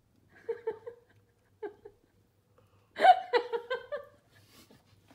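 People laughing: a few short giggles, then a louder burst of laughter about three seconds in.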